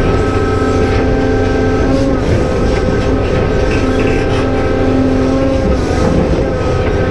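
Cat 390F excavator's diesel engine working hard, with the whine of its hydraulic pumps and valves, several steady tones that shift slightly in pitch as the levers are worked.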